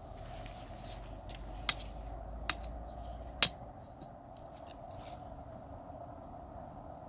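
Sharp clicks and small cracks of sticks of wood being cut and worked by hand: three louder ones in the first half, then a few softer taps.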